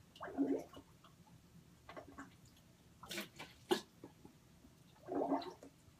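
Small water sounds: a short gurgle about half a second in and another near the end, with a few sharp drips or clicks between, around three seconds in.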